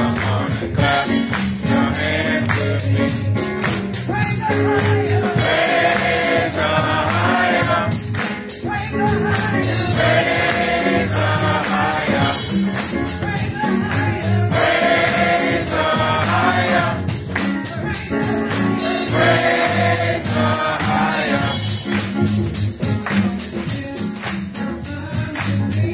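Congregation singing a gospel song together, its sung phrases swelling every few seconds over steady rhythmic hand-clapping.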